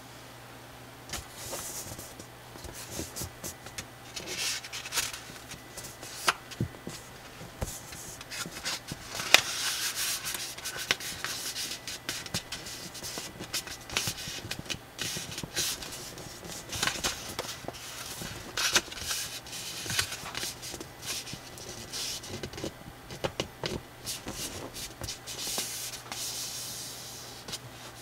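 A sheet of slightly thick colored drawing paper being folded by hand, rubbing and sliding on the table, with sharp crackles as the creases are pressed flat. It comes in irregular bursts with short pauses between them.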